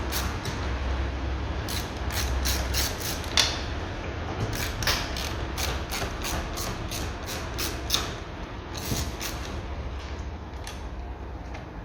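Ratchet clicking in runs of short clicks, about four a second, with pauses between runs, as the Torx T25 screws holding the electric window regulator motor are undone.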